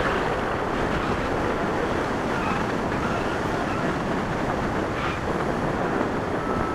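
Wind rushing steadily over a camera microphone in flight under a tandem paraglider.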